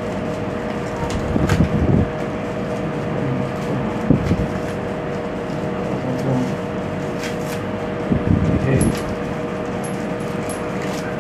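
Scattered light clicks and rustles from hands working the metal end fitting of a flexible basin mixer hose and its plastic wrapping. Under them runs a steady background hiss with a constant hum.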